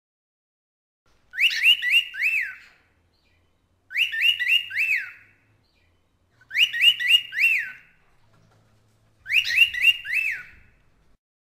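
Cockatiel whistling in short repeated phrases: four phrases of three or four quick rising-and-falling whistled notes, each phrase about a second and a half long, with a gap of about a second between them.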